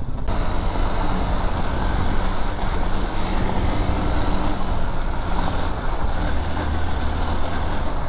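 Hero XPulse motorcycle's single-cylinder engine running steadily under way on a rough gravel track, with a continuous rush of wind and road noise.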